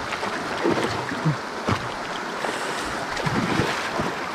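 A hooked yamú thrashing and splashing at the water's surface as it is pulled to the bank, in irregular bursts over the steady rush of river water.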